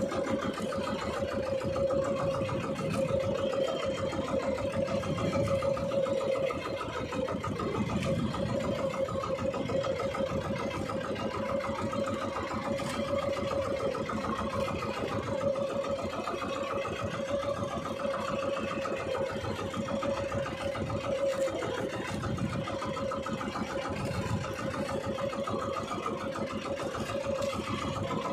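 Small boat engine running steadily with a constant mid-pitched drone, slightly quieter after about six seconds.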